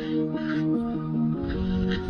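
Background music: a melody of short, quickly changing notes over a light beat.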